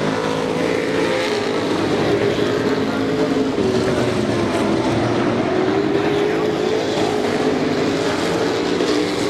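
Super Pro race trucks racing around a paved oval, several engines running together at speed. Their overlapping engine notes rise and fall in pitch as the trucks pass, with no break.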